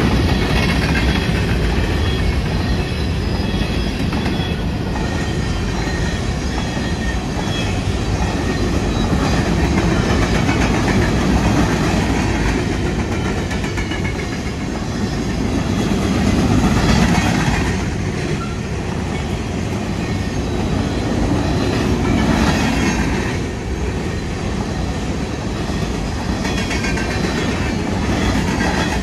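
Covered hopper cars of a freight grain train rolling past close by: a steady rumble with the clatter of wheels over the rail joints, swelling and easing as the cars go by.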